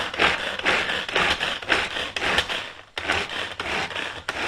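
Red pull-cord food chopper being yanked again and again, its spinning blades clattering through cabbage in a fast series of loud rattling strokes, about three a second.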